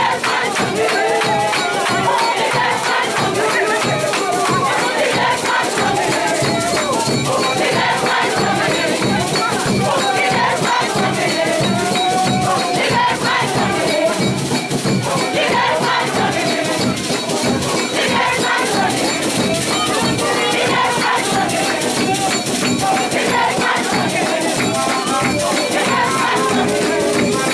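A large crowd of worshippers singing and calling out together over steadily rattling hand percussion.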